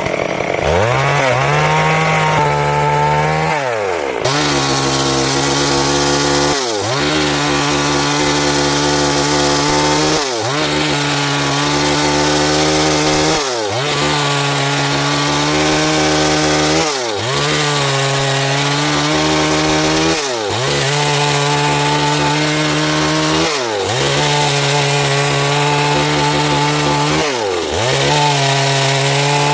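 Stihl MS 382 two-stroke chainsaw revving up, then cutting through wood at high revs. Its pitch sags and recovers about every three and a half seconds.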